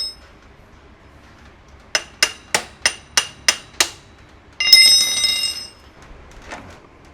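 Metal striking metal: seven sharp ringing taps about three a second, then about a second of bright metallic ringing and scraping, as the rear axle is worked through the wheel and swingarm.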